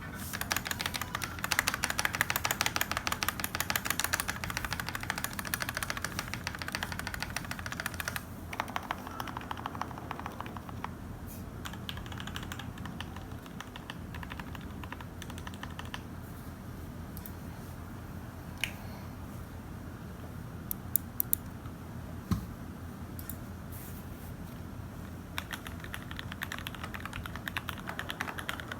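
Typing on a custom 65% mechanical keyboard: lubed and filmed Gateron KS3 Yellow linear switches in an acrylic case with JTK keycaps. Fast, continuous keystrokes for about the first eight seconds give way to slower, sparser typing with a few single louder strokes, and the typing picks up again near the end.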